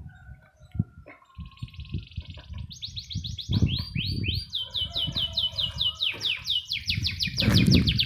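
Canary singing: a long song of fast trills, each a quick run of repeated high notes, the pace and pitch shifting from one trill to the next, starting about a second and a half in. Low thumps and rumbles run underneath.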